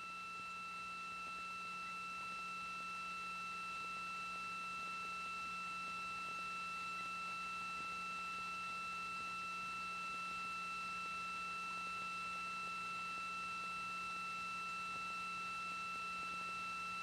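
Steady electronic tones on the launch broadcast's audio feed: two high pure pitches held without change, with a faint low hum and light hiss beneath. The tone fills the gap between the commentator's callouts.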